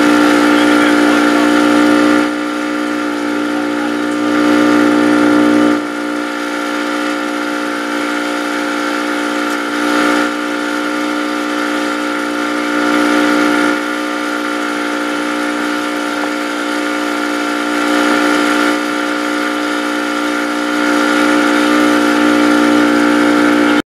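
Boat motor running steadily with an even, unbroken drone, its loudness swelling and easing a little every few seconds.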